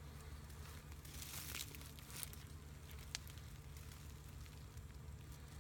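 Faint crinkly rustling, strongest about a second or two in, and a single sharp click about three seconds in, over a steady low rumble.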